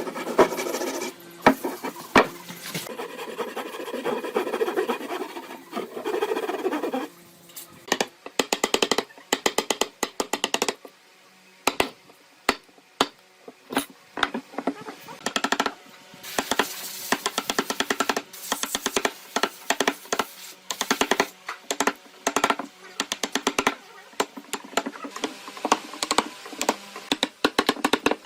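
Wood being worked with hand tools: a steady scraping or rasping for about the first seven seconds, then many sharp wooden knocks and taps, some in quick runs.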